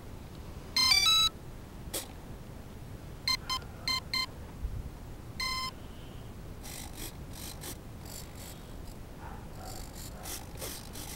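Brushless motor and electronic speed controller of an electric RC plane beeping as the flight battery is connected. A quick run of stepped start-up tones comes first, then a quick series of short beeps and one longer beep, the ESC's power-up and arming signal. Faint handling rustle follows.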